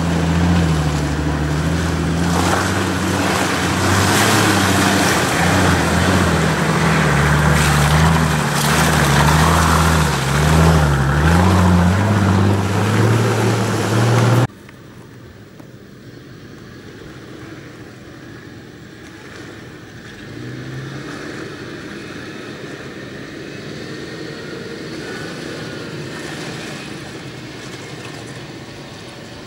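Nissan Patrol 4x4's engine working hard close by as the SUV crawls through mud ruts, its pitch wavering as the throttle is fed on and off. About halfway through it cuts off abruptly, and a much quieter off-road vehicle engine carries on farther away.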